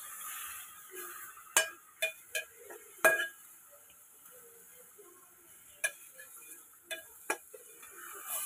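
Metal ladle stirring chicken pieces in oil in an aluminium pot, knocking and scraping against the pot in sharp clinks, about seven of them, the loudest about three seconds in.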